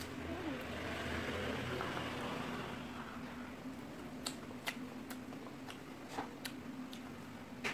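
Mouth noises of a child chewing fried chicken wing: a few sharp wet smacks and clicks in the second half, over a steady low hum.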